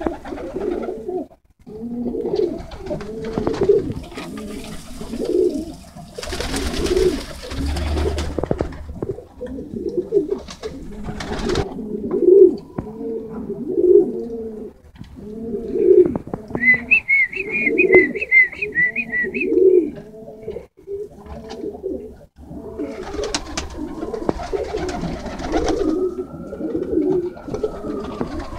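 Tippler pigeons cooing over and over in the loft, several birds overlapping in a steady low chorus. A quick run of high chirps comes a little past halfway.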